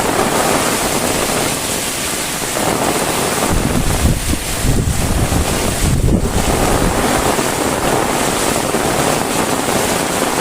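Heavy rain falling in a steady hiss, with wind buffeting the microphone in a low rumble from about three and a half to six and a half seconds in.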